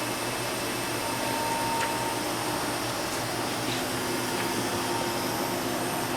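Steady whirring hum of a powered-up Fanuc Robodrill vertical machining center, its fans and running units droning evenly, with a couple of faint ticks.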